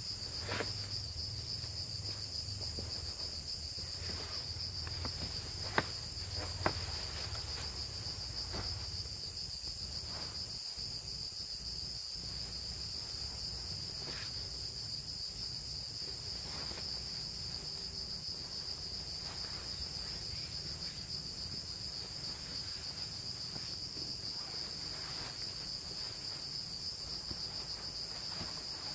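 Steady, high-pitched chorus of night insects in tropical forest, an unbroken shrill buzz. In the first several seconds there is rustling from a nylon hammock being climbed into, with a couple of sharp clicks.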